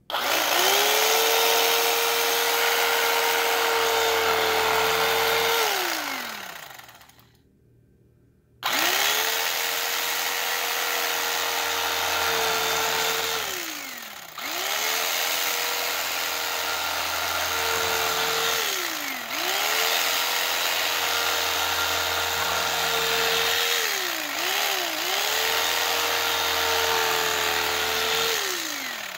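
Electric carving knife running in bursts as it slices a loaf, a steady motor whine that drops in pitch each time it is switched off and starts up again a moment later. It stops fully for a couple of seconds about seven seconds in, and cuts out briefly again around 14, 19 and 24 to 25 seconds.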